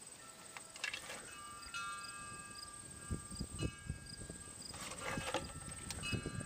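Outdoor ambience: a steady high insect drone with a few sustained chime-like tones. Low thumps and rustles come about halfway through and again near the end as the small engine is handled.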